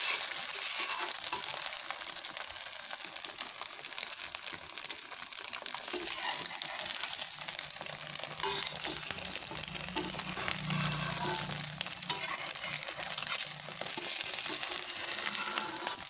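Beaten egg frying in hot oil in an aluminium wok: a steady, crackling sizzle.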